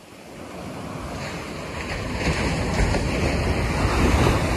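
Ocean waves breaking and washing up a sandy beach, mixed with wind buffeting the microphone as a deep rumble. The sound swells from quiet to loud over the first two seconds.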